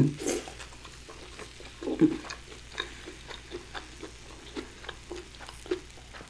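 Food sizzling on the heat: irregular soft crackles and pops over a faint hiss. A short hum is heard near the start and again about two seconds in.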